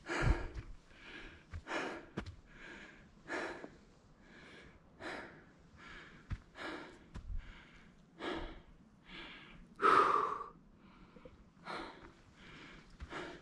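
A hiker breathing hard and evenly while climbing a steep trail, about one breath a second, the loudest one about ten seconds in. A few faint low thuds sound underneath.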